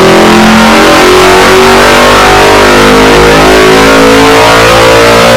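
Hilborn mechanically injected 302 small-block Chevrolet V8 running loud under load on an engine dyno, its pitch climbing steadily after the first second or so as the revs rise through a power pull. Heard from the control room through the test-cell glass.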